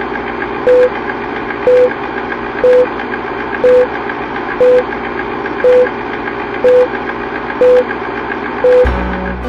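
Old-film countdown sound effect: a steady film-projector whir with a short mid-pitched beep once a second, nine beeps in all. Music with low notes comes in near the end.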